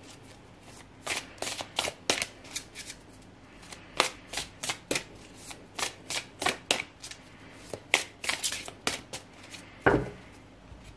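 A deck of oracle cards being shuffled overhand by hand: a run of crisp card slaps and flicks, a few a second, with a short pause after about two and a half seconds. A heavier knock comes near the end.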